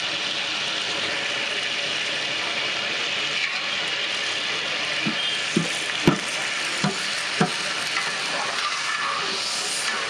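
A long metal ladle stirring spiced water in a large aluminium cooking pot over a steady hiss. The ladle knocks against the pot about five times around the middle, and the water swirls harder near the end.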